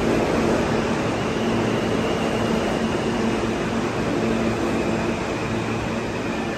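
New York City subway E train running past the station platform: a steady rumble of wheels on rail with a steady hum underneath and a faint high whine.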